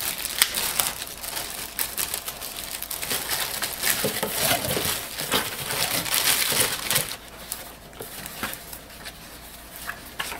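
Clear plastic packaging crinkling as a bagged bundle of manuals and a CD-ROM is handled, dense and crackly for about seven seconds. After that it turns quieter, with a few light paper rustles and ticks.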